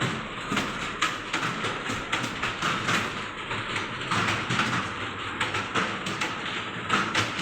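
Rapid typing on a computer keyboard: a dense, continuous run of key clicks.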